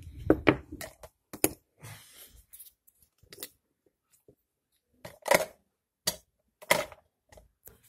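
Scattered sharp clicks and knocks of felt-tip markers being handled on a tabletop and dropped into a plastic pen cup, about six in all. There is a low rumble of the phone being handled in the first second.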